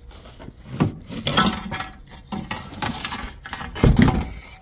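Metal slide-out roller being worked loose and pulled out from under an RV slide-out room: irregular metallic clanks, rattles and knocks, with a heavy thump about four seconds in.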